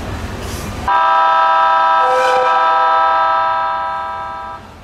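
Train horn sounded once: a steady chord of several tones starts abruptly, holds for about three seconds, then fades out.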